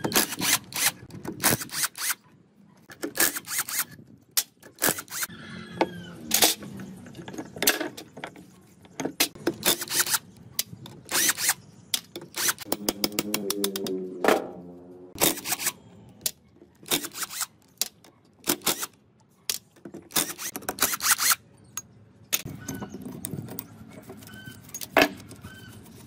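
Steel parts of a tricycle's rear axle and differential clinking and knocking as they are handled and taken apart: many sharp metallic clicks and taps, with a longer ringing scrape about halfway through.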